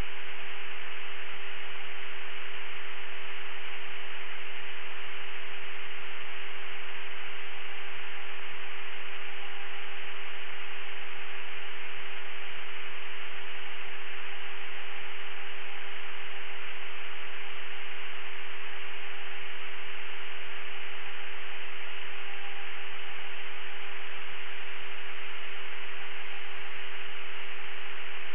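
Steady hiss of static on an open radio channel, with a steady hum tone running under it.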